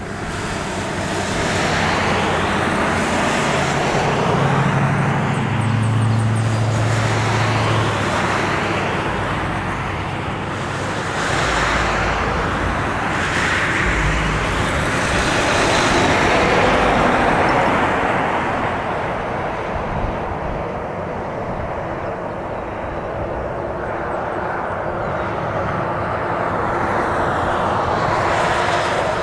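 Airbus A320 jet airliner landing, heard from a distance: a steady rush of its IAE V2500 turbofan engines as it comes in, touches down and rolls out along the runway. The noise is loudest around the middle.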